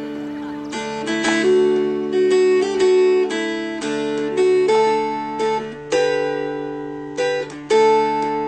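Background music: a plucked string instrument picking a run of ringing notes over a held low note.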